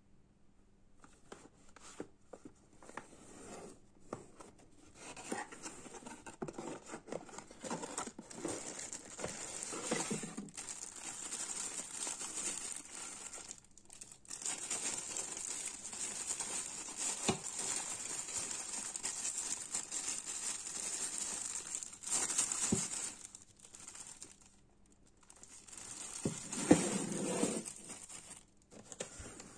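Clear plastic bag crinkling and rustling around a mini ceiling fan as it is handled and unwrapped, with small knocks of cardboard packaging. It comes in long stretches with short pauses, and a louder flurry near the end.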